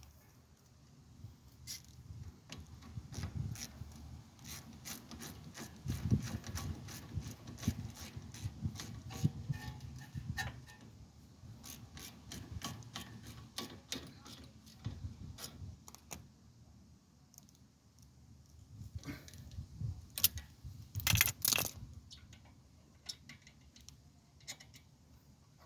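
Hand tools and metal brake parts clicking and clinking irregularly during work on a car's front brake. There is a denser run of louder clicks about twenty-one seconds in.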